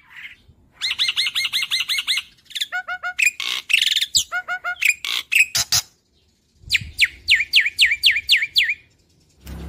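Black-winged starling (jalak putih) singing: two fast runs of repeated sharp falling notes, about seven a second, with a stretch of varied, mixed notes and clicks between them.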